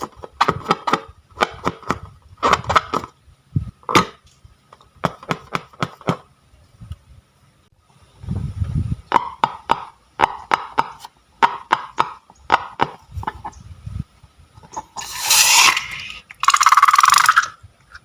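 Slime being squeezed and worked by hand, giving clusters of short sticky clicks and pops, with two longer noisy bursts of about a second each near the end.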